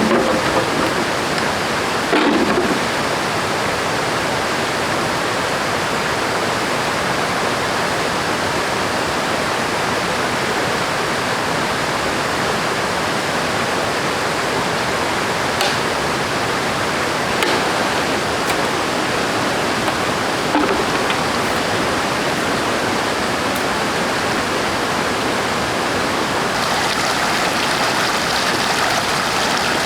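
River water rushing steadily, a loud even wash with no break.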